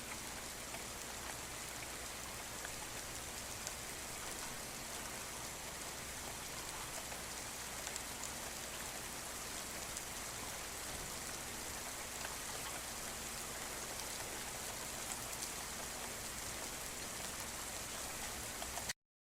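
Steady rain falling, with scattered individual drop hits in it; the sound cuts off abruptly near the end.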